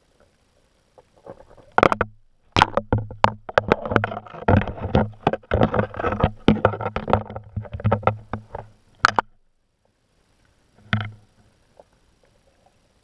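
Rapid clicks and scraping knocks underwater, heard through the camera housing as a blue crab picks and pulls at a mesh bait bag; a dull low hum swells with each run of contact. The clicking stops after about nine seconds, with one short burst of knocks near the end.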